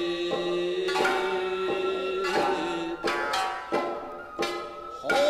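Kabuki dance accompaniment: plucked shamisen and sharp hand-drum strikes under a long held note.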